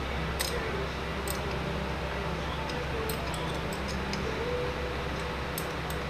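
Small, sharp metallic clicks, about half a dozen spread irregularly, as a quarter-inch wrench works on the small square-headed bolts of a model engine, over a steady low hum.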